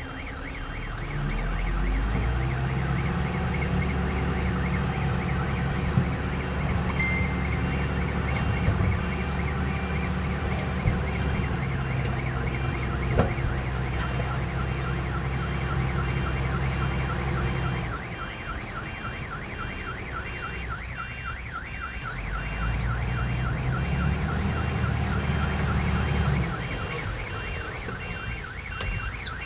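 Heavy earthmoving machine's diesel engine working hard, easing off about two-thirds of the way through, then pulling hard again for a few seconds. A rapid, regular high-pitched chirping runs over it throughout.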